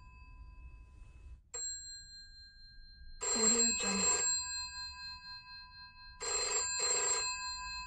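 Bell of a 1960s rotary-dial telephone ringing in a double-ring pattern: two short rings close together, then another pair about three seconds later, the bell's tone hanging on between them. A single brief tap of the bell comes about a second and a half in.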